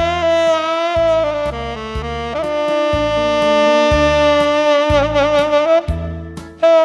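Saxophone playing a slow melody in soft subtone over a backing track with a bass line, holding long notes, one with a wide vibrato about five seconds in.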